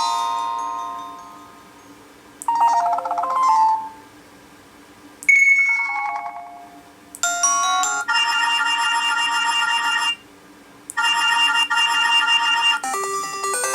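An HTC Desire 610 smartphone's loudspeaker playing built-in ringtone previews one after another: a string of short, different electronic melodies, each stopping as the next begins, with brief gaps between some. Around the middle one ringtone's repeating figure plays, pauses for about a second and starts again.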